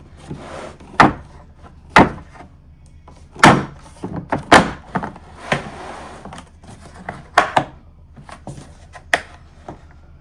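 Socket wrench case with 3D-printed replacement clasps being handled, opened and shut: a run of sharp, irregular clacks and knocks as the clasps snap and the lid closes.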